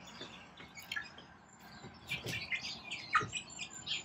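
Young hens (pullets) chirping softly in short, high cheeps, with a couple of light knocks, the loudest about three seconds in.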